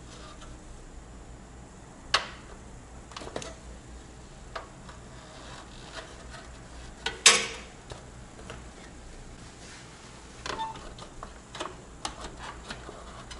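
Scattered clicks and knocks of gloved hands handling parts inside an open desktop PC case, the loudest about seven seconds in, over a faint low hum.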